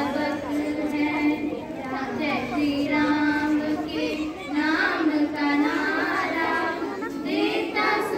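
A small group of teenage girls singing a bhajan, a Hindu devotional song, together in long held notes.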